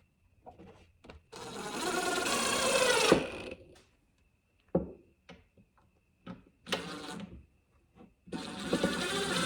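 Cordless drill running slowly under load on its low-speed setting in three runs: about two seconds starting a second in, a short one near seven seconds, and another starting near the end, with small clicks between them.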